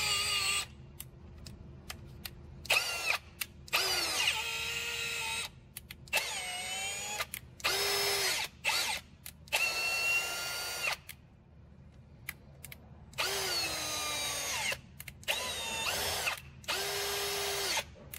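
Cordless drill driving a thread chaser through the threads of a broken bolt's hole in an engine. It runs in repeated short trigger pulses, its motor whine rising as it spins up and falling as it winds down each time, with a longer pause about halfway through.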